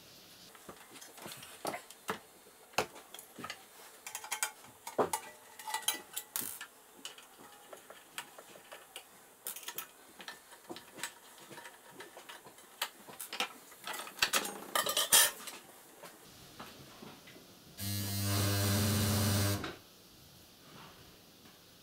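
Clicks, taps and knocks of a screwdriver and hands working the plastic housing covers off a Kenmore Ultra Stitch 12 sewing machine, with a short burst of scraping about fifteen seconds in. Near the end a steady hum sounds for about two seconds and stops.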